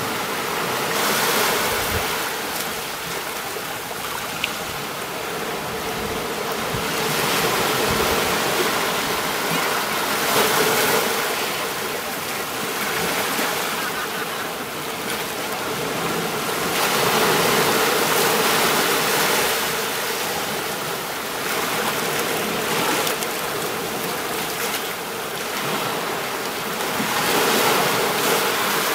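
Sea waves breaking and washing up on a beach, a continuous rushing that swells and ebbs in surges every few seconds.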